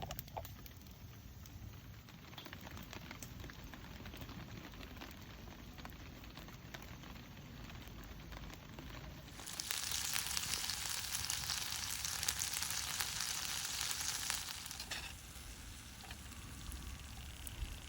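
Food frying in a pan, a steady sizzle that turns suddenly much louder about halfway through and drops back abruptly some five seconds later.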